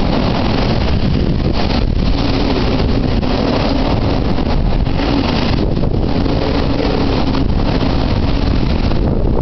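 Typhoon wind buffeting the microphone: a loud, steady rush of noise with a low droning tone underneath, easing slightly for brief moments.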